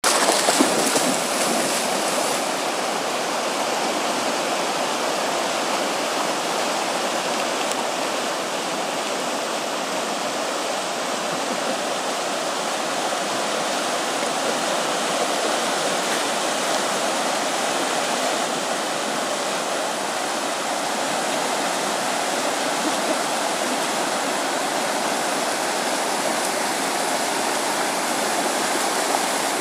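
River water rushing steadily over a shallow stretch of rapids.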